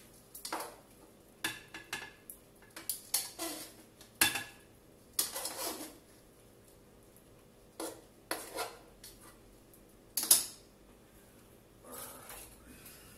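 A utensil clinking and scraping against a frying pan and a plate as cooked kale and vegetables are served out, in irregular short clatters, the loudest knocks about four seconds in and about ten seconds in.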